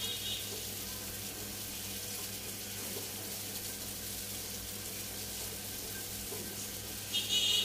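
Egg frying in hot oil in a nonstick pan, a steady sizzle while it is stirred and broken up with a wooden spatula.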